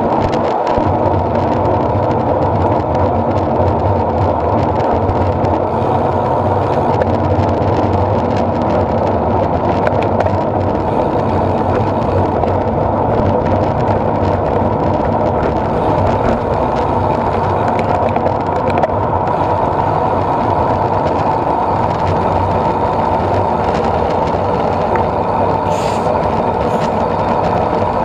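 Steady rush of wind over a bike-mounted camera's microphone, mixed with tyre noise on asphalt, as a road bike rides along at speed. A couple of faint, brief high-pitched sounds come in near the end.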